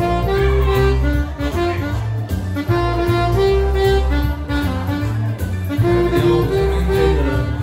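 Saxophone playing a melody of held notes live over backing music with a steady bass line.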